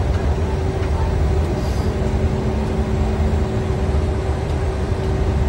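Steady flight-deck noise inside a Gulfstream G550 jet: a continuous low rumble with a constant hum, and a second steady hum joining about two seconds in.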